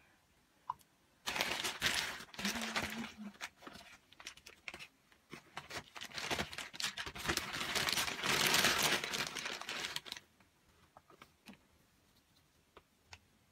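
Plastic crinkling and rustling as it is handled, in irregular bursts for about nine seconds, loudest near the end before stopping.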